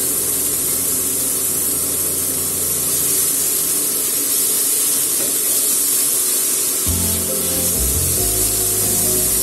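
Meat sizzling in a hot frying pan as it is stirred with a spatula, with background music over it; the music's low notes come in stronger about seven seconds in.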